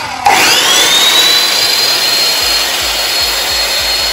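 Ryobi EMS254L 2000 W sliding mitre saw switched on: the blade spins up, its whine rising over the first second, then runs at speed with a steady high whine.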